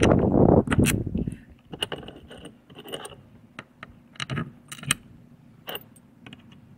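Light metallic clicks and clinks, irregular and spread out, of a hex key turning a bolt in a steel awning mount bracket as the mount bolts are tightened. A loud rustle in the first second.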